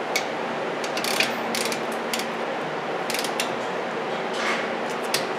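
A hand ratchet clicking in short irregular runs as the front brake caliper bolts are tightened, over a steady background hum.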